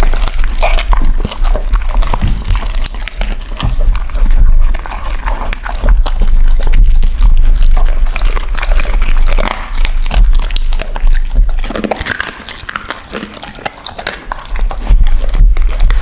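A Labrador and an Alaskan Malamute gnawing and chewing cooked meat on the bone close to a microphone: a dense, irregular run of wet chewing, tearing and crunching, quieter for a few seconds about three-quarters of the way through.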